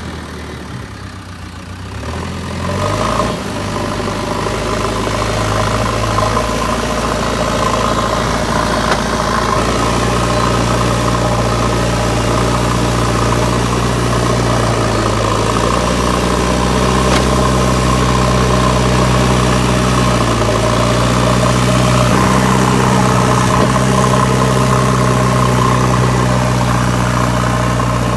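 JCB backhoe loader's diesel engine running steadily, quieter for the first couple of seconds and then louder from about three seconds in, its pitch stepping up and down a few times as the load changes.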